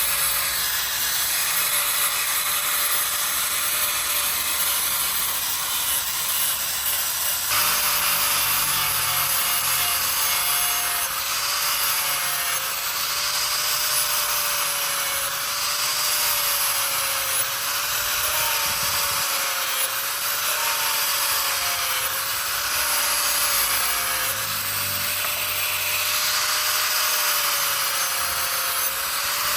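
Electric power tool running steadily with a rough rubbing, sanding noise. Its motor pitch dips and recovers about once a second as it is pressed into the work, and the rubbing grows rougher about a third of the way in.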